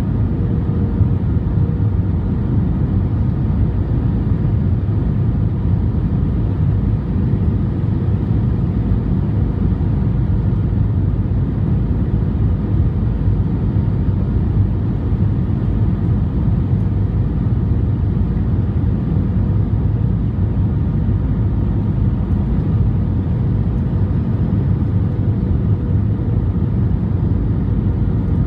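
Steady cabin noise heard from a window seat over the wing of an Airbus A320 in flight: a low, even rumble of the jet engines and the air rushing past the fuselage, unchanging throughout.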